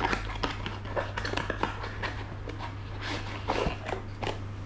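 A multi-tool's packaging being opened and handled by hand: an irregular run of crackles, rustles and small clicks over a steady low hum.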